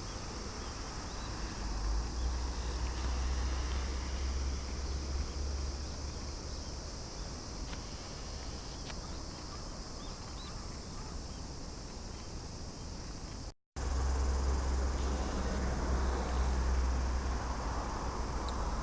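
Steady chorus of summer insects, with a low rumble underneath that comes and goes. The sound drops out for a moment about two-thirds of the way through.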